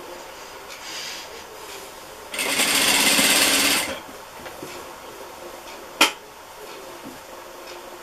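Sewing machine stitching in one short run of about a second and a half, a little over two seconds in, sewing bias binding onto the edge of a dish towel. A single sharp click about six seconds in.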